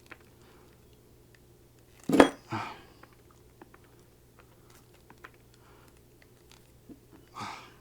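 Small metal parts and hand tools being handled while bending up the ends of a soldering gun tip: one sharp metallic clack about two seconds in, then a brief scrape, scattered light ticks, and a softer rustle near the end.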